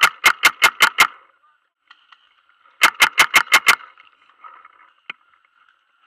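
Tippmann A5 paintball marker firing semi-automatic in two quick strings of about six shots each, roughly six shots a second, with a pause of nearly two seconds between them. One more single sharp click about five seconds in.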